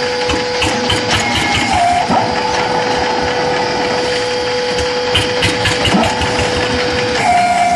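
Mobile concrete block-making machine running, with a steady hum under a stream of rattles and knocks.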